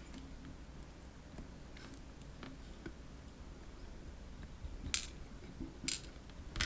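Faint small clicks and taps of little metal lock parts being handled as a padlock's pins are sorted. There are two sharper clicks about five and six seconds in.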